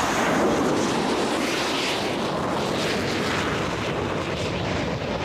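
Jet aircraft engine noise, a loud steady rush, as the jet launches off the carrier deck and climbs.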